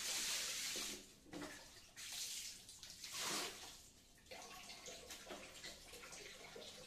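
Water thrown from a dipper splashing onto a tiled bathroom floor, several splashes over the first few seconds, the first the loudest, followed by a fainter steady wash of water.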